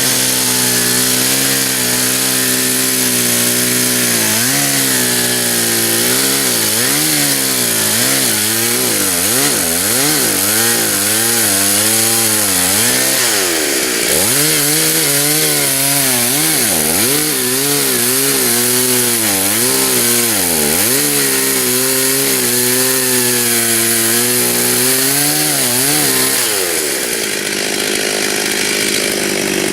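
Stihl chainsaw cutting into a dead white oak, its engine pitch rising and dropping over and over as the chain bites and bogs under load. Near the end the pitch swings stop and the engine note changes.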